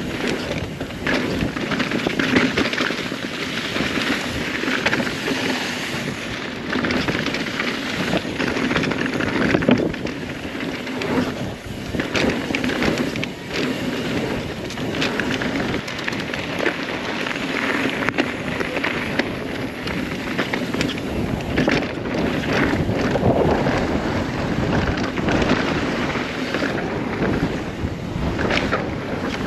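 Mountain bike running fast down a dirt downhill trail: tyres rolling over dirt, with the chain and frame rattling and many sharp knocks over bumps, and wind buffeting the microphone.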